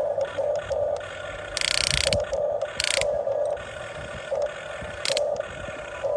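Huina 1550 RC excavator's small electric motors and geared drives working, with a whirring tone that pulses about twice a second. There are three short, louder rasping bursts, the longest a little over a second and a half in.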